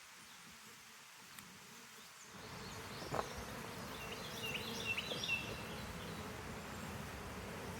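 Honey bees buzzing in a steady dense hum around an open hive; the buzz comes in suddenly about two seconds in. A few sharp clicks and short high chirps sound over it in the middle.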